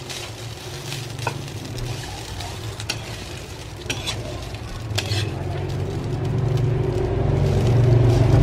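A spatula stirring and scraping cold cooked rice around a hot ceramic-lined frying pan, with a light sizzle and a few sharp scrapes against the pan. A low hum grows louder over the last couple of seconds.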